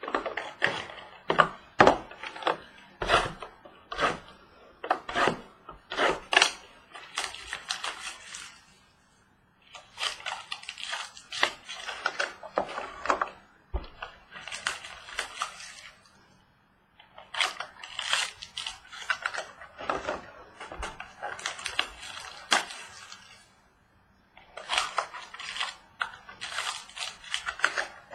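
Crinkling and tearing of packaging as a box of baseball cards and its packs are opened by hand: spells of dense crackling and rustling broken by short pauses.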